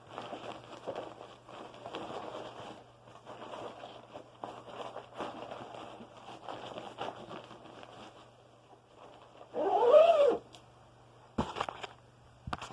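Rustling handling noise as a vacuum bag is tucked into an upright vacuum's bag compartment, then one loud cat meow, rising and falling, about ten seconds in, followed by two sharp clicks near the end.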